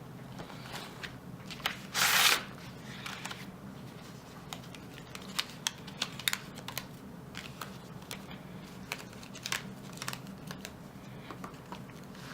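Paper sheets being handled and put back into a disc-bound planner: a loud rustle of paper about two seconds in, then scattered light clicks and taps.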